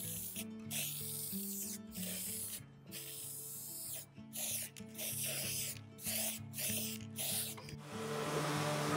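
Aerosol spray-paint can sprayed in a string of short hisses, each about half a second to a second long with brief pauses between them, over background music. Near the end a random orbital sander starts running.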